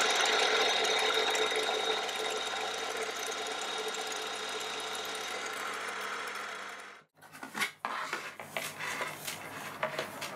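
Milling machine spindle running with a 6 mm drill bit boring into wood: a steady motor whine that slowly fades, then cuts off abruptly about seven seconds in. A few light clicks and knocks of tooling being handled follow.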